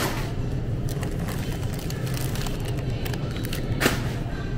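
Grocery store background: a steady low hum with faint scattered clatter, and two sharp clicks, one at the start and one just before four seconds in.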